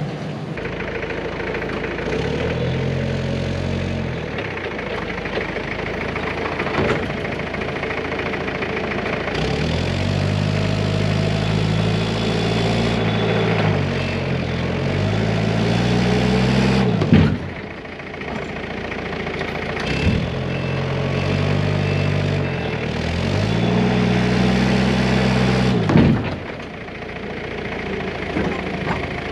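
A Cat loader's engine revving up and dropping back several times as it works under load, with sharp cracks and crunches as the brittle cone tanks break. The loudest cracks come a little past halfway and near the end.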